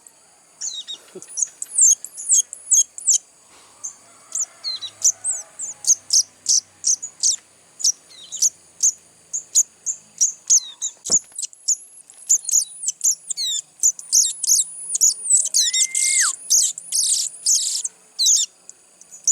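Young hand-reared sogon birds giving rapid, high-pitched begging chirps, several a second, growing denser and louder toward the end.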